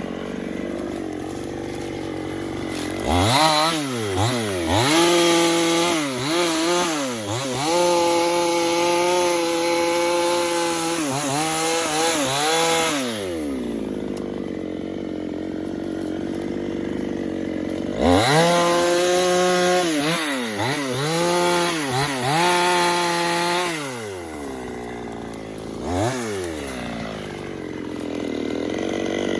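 Two-stroke chainsaw revved up in two long bursts, holding a steady high pitch for several seconds each time as it cuts through wood, and dropping back to idle between and after, with a short blip of the throttle near the end.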